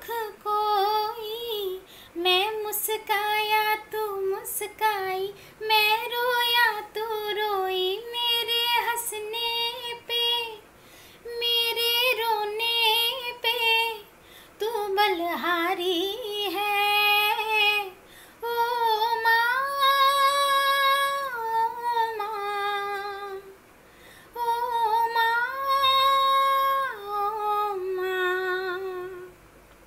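A woman singing a slow song unaccompanied, in phrases with long held notes and short pauses for breath between them.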